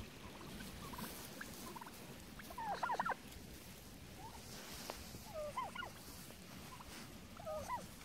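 Heritage black turkey toms gobbling: three quick wavering gobbles a couple of seconds apart, the first and loudest about three seconds in.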